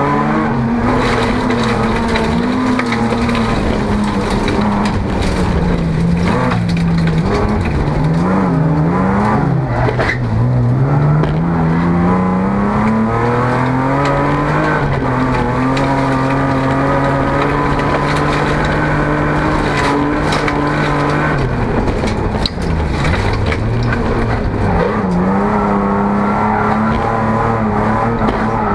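Folk-race car's engine heard from inside the cabin at racing speed, its pitch swinging quickly up and down about 6 to 10 seconds in, then climbing and holding steady before dropping sharply a little after 21 seconds as the driver lifts off. Scattered knocks and rattles run through it.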